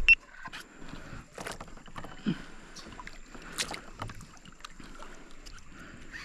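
Irregular knocks, clicks and scrapes of gear being handled on a plastic fishing kayak, with one sharp click right at the start.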